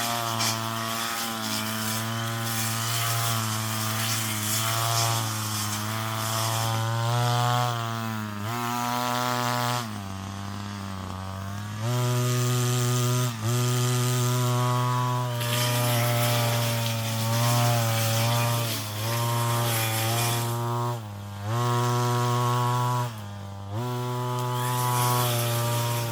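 Brush cutter engine running at high revs and easing off in pitch and loudness for about two seconds about ten seconds in. It dips briefly again a few times later, rising back to full speed each time.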